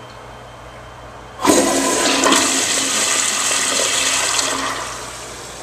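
Crane toilet flushing: a sudden rush of water begins about a second and a half in, runs loud for about three seconds, then dies away near the end.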